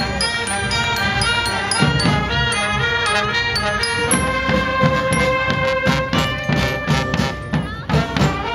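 Street marching band of horns and drums playing a tune over a steady drum beat, with one horn note held long from about four seconds in.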